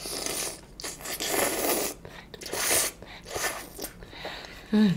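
A person slurping noodles in several airy draws, the first lasting about two seconds and the later ones shorter, with a brief voiced hum near the end.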